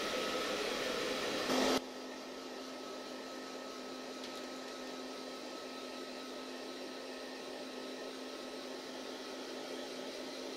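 Hair dryer blowing with a steady rush and hum. It drops suddenly to a quieter level about two seconds in, then runs on evenly.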